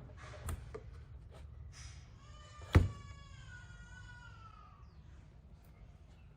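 A hard knock about three seconds in, followed by a ringing tone that slides slightly lower and fades over about two seconds; a fainter knock comes shortly after the start.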